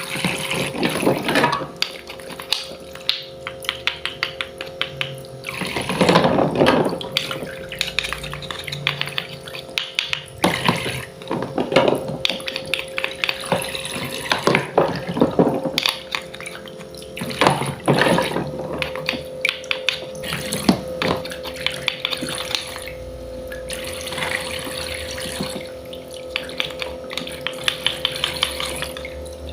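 Water running and splashing in a small sink, with frequent clicks and taps of small utensils and a steady hum underneath.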